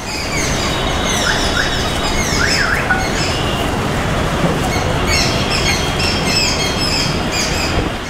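Many birds chirping with short, high calls that mostly fall in pitch, over a loud, steady rushing background noise. The sound fades in at the start and fades out near the end.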